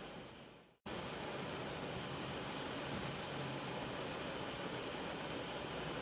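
Steady rain hiss that fades away in under a second to a brief moment of silence, then cuts back in abruptly and continues evenly.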